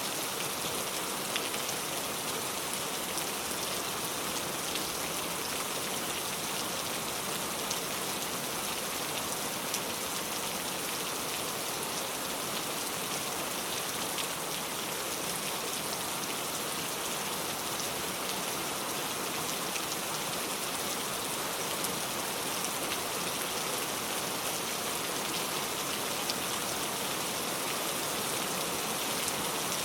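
Steady heavy rain pouring down in an even hiss, with faint scattered drop ticks.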